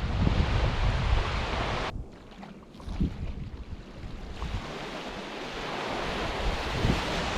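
Waves washing on a beach, with wind buffeting the microphone; the low wind rumble drops away suddenly about two seconds in, and the surf hiss builds again toward the end.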